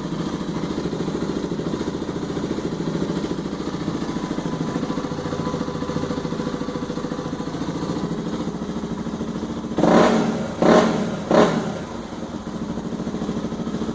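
Honda Falcon 400i single-cylinder motorcycle engine with an aftermarket sport exhaust, iridium plug and sport air filter, idling steadily and then revved in three quick throttle blips before settling back to idle.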